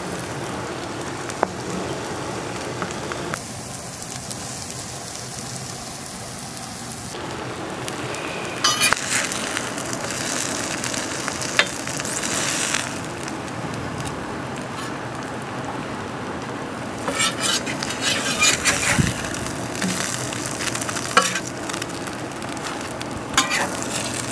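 Onion burgers and buttered buns sizzling on a hot steel flat-top griddle. From about a third of the way in, a metal spatula scrapes and clicks against the steel several times as the burgers are worked loose and lifted.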